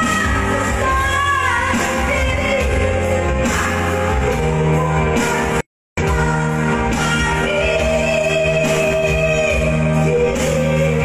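A woman singing live into a microphone over instrumental accompaniment, holding long sustained notes. The sound cuts out completely for a moment about halfway.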